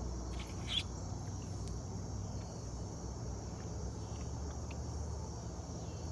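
Steady, high-pitched insect chorus of crickets trilling continuously, with a few faint clicks in the first second.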